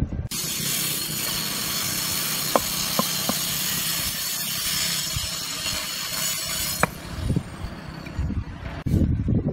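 Concrete hexagonal pavers knocking against each other as they are handled and stacked: a few sharp clicks, under a steady rushing hiss that cuts off suddenly about two-thirds of the way in, followed by dull thuds.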